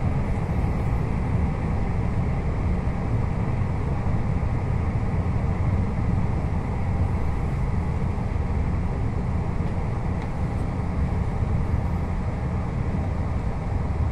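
Steady running noise inside a Taiwan Railways Puyuma tilting electric multiple unit moving at speed: an even low rumble of the carriage on the rails.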